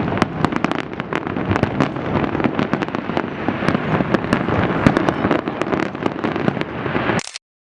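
Fireworks display: a dense, continuous barrage of bangs and crackling. It cuts off abruptly near the end into a moment of silence.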